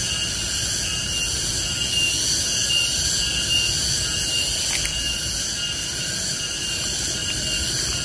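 Garengpung cicadas (tonggeret) singing in a loud, steady, unbroken high-pitched drone, with a thin whine held on one pitch above the shrill buzz.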